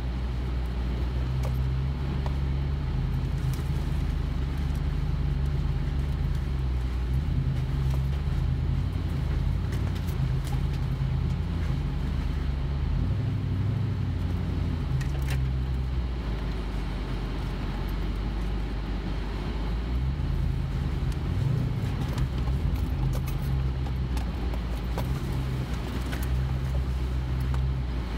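Toyota Tundra pickup crawling over a rough dirt trail, heard from inside the cab: a steady low engine drone whose note shifts a little now and then, with scattered small clicks and knocks from the truck working over the ruts.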